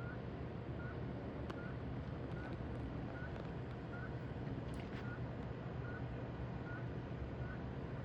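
Steady low droning hum of an unidentified object flying overhead, with a short high chirp repeating a little more than once a second.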